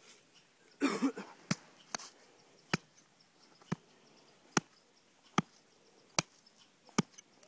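A hand tool chopping down into packed snow and the ground beneath it: about eight sharp, evenly spaced strikes, a little under a second apart. A brief rough noise comes about a second in.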